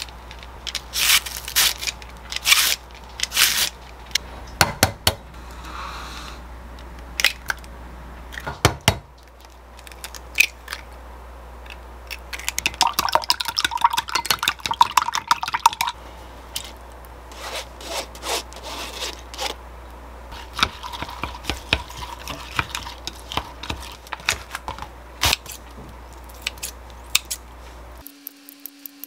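Cabbage shredded with a handheld slicer, in sharp rasping strokes, into a glass measuring cup. Then, from about twelve seconds in, eggs are beaten briskly in the glass cup with rapid clinking strokes, followed by scattered clicks and taps of kitchen work.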